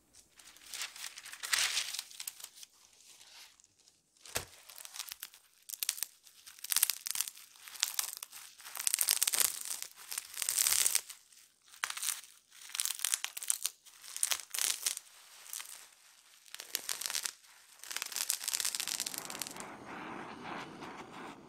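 Plastic bubble wrap crinkling and crackling in repeated short bursts as it is peeled off a set sheet of white chocolate. Near the end it gives way to a duller scraping as a metal ring cutter cuts through the chocolate sheet.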